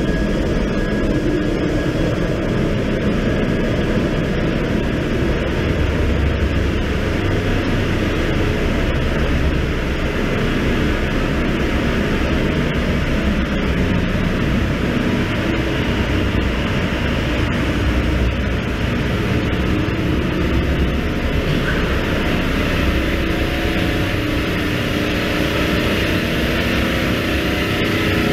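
Loud, steady drone of a cargo ship's engine-room machinery running.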